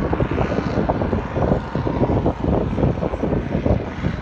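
Many motorboat engines running out on the water, mixed with wind buffeting the microphone in uneven gusts.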